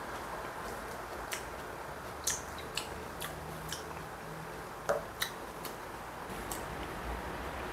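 Short clicks and clinks of a glass bottle and a small shot glass being handled while a drink is poured, about nine in all and uneven. The loudest come a little over two seconds in and just before five seconds. Steady low room noise runs underneath.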